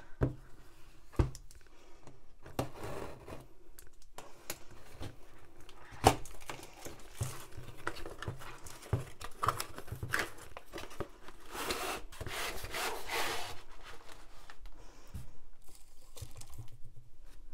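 Plastic shrink-wrap and cardboard packaging being torn open and crinkled by hand, in irregular crackling spells, with a few sharp knocks from handling the box, the loudest about six seconds in.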